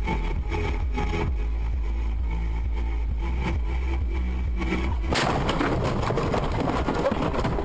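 Car driving on a rain-soaked road, a steady low rumble of engine and tyres on wet tarmac. About five seconds in, the rumble cuts off and gives way to a loud rough clattering and crashing noise as the car crashes and the dashcam is thrown about.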